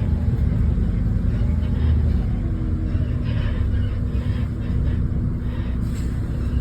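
Bus engine running steadily while under way, a low rumble with a steady hum, heard from inside the bus.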